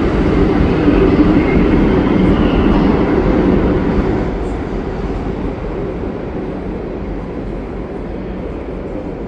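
Subway train running, a loud, steady rumble that eases off about four seconds in.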